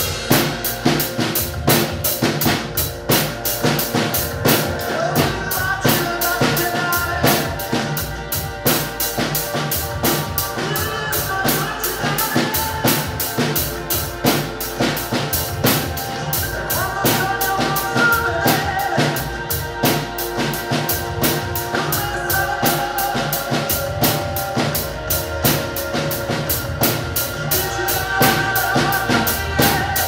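A Tamburo T5 acoustic drum kit played in a steady, driving beat of bass drum, snare and cymbals, over a recorded pop song.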